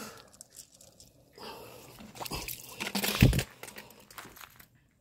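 Footsteps in flip-flops crunching and squelching over wet sand and broken shell on a tidal flat, with a heavier bump a little after three seconds.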